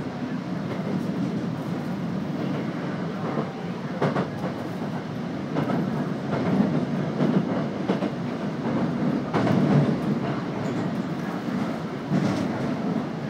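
Midosuji Line subway train running, heard from inside the passenger car: a steady rumble of wheels and running gear with occasional clacks over the rails.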